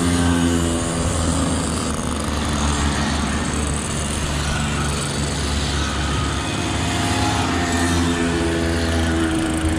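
Small two-stroke moped engines running as a string of vintage mopeds passes one after another.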